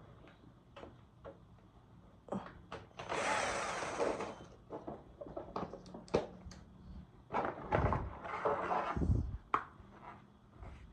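Hand work with tools and parts: scattered knocks and clicks, with two longer scraping or rustling stretches, one a few seconds in and one after the middle, and a couple of dull low thuds.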